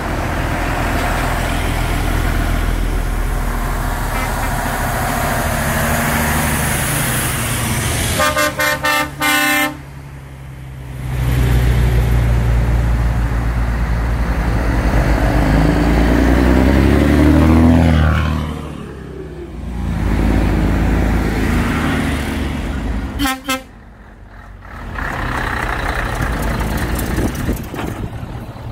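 Heavy trucks driving past one after another, their diesel engines running steadily and swelling as each one passes. A rapid series of horn toots sounds about eight seconds in, and another short series about three-quarters of the way through.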